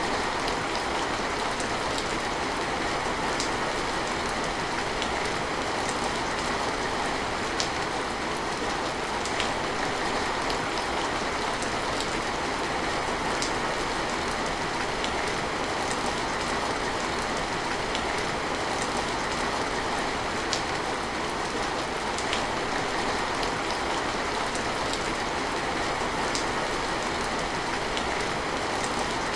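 Steady rain falling, an even hiss with scattered individual drops ticking sharply on a nearby surface.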